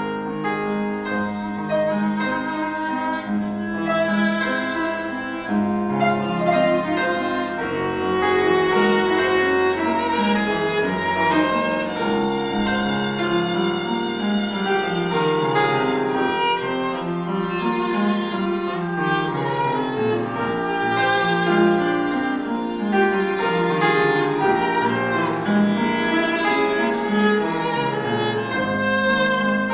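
Violin and grand piano playing a classical violin sonata movement live. Sweeping rising and falling runs come through midway.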